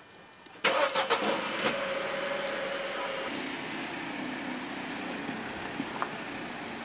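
Car engine starting: a sudden burst with a few sharp clicks about half a second in, a steady higher tone for a couple of seconds, then settling to a lower, steady idle.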